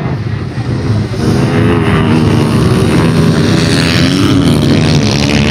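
Two pit bike engines running hard as the bikes race past, getting louder about a second in. The engine pitch dips and then climbs again near the end.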